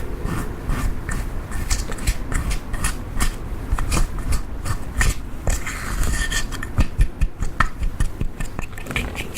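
Butter slime being worked and mixed, a fast irregular run of sticky clicks, crackles and squelches with some scraping.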